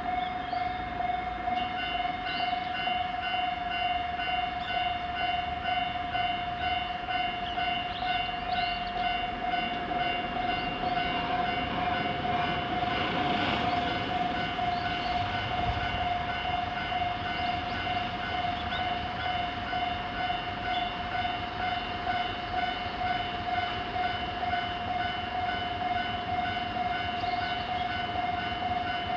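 Japanese railway level-crossing alarm sounding continuously, an unusual-sounding JR crossing alarm: a steady tone with a rapidly repeating electronic ding layered over it. A train passes through about halfway in, adding a rushing rumble that is loudest for a few seconds.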